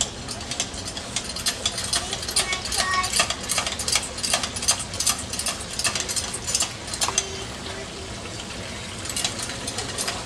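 Water splashing and trickling from small garden fountains, an irregular patter of drops over a steady hiss.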